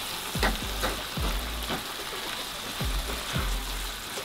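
Wooden spatula stirring minced pork and vegetable sauce in a frying pan, scraping and pushing through it in repeated strokes over a steady sizzle.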